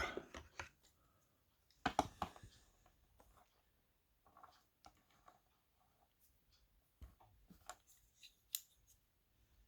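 Faint, scattered handling clicks and taps of small die-cast toy cars being picked up and turned over, with a cluster of clicks about two seconds in and several more near the end.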